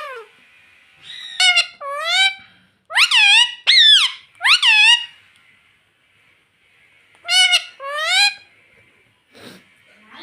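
Indian ringneck parrot calling: short, high-pitched squawks that rise and fall in pitch, about seven in quick succession, a pause, then three more.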